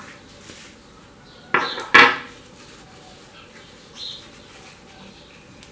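Two short, sharp handling sounds on a stone worktop about half a second apart, about one and a half seconds in, from hands moving craft materials such as a small metal paint tin and kitchen paper towel. A faint paper rustle follows near the fourth second as the paper towel is folded.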